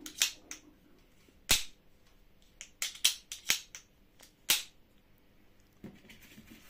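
Air pistol being handled, its mechanism and fittings giving a series of sharp, irregular clicks and snaps, about a dozen in all, the loudest about a second and a half in.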